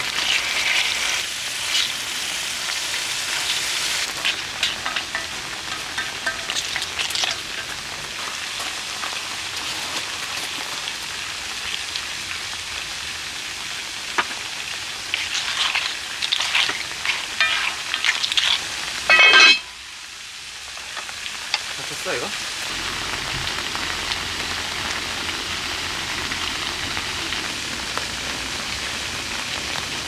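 Food sizzling and frying in a pan, with utensils clicking and scraping against it. Just before two-thirds of the way through, the sound cuts sharply to a steady, even hiss like rain falling on the campsite.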